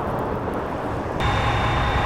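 Steady road and engine noise of a vehicle driving. About a second in it changes abruptly to a louder noise with steady high whining tones.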